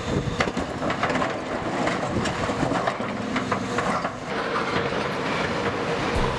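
Heavy equipment working, its diesel engine running under a continuous clatter of small knocks and creaks of steel.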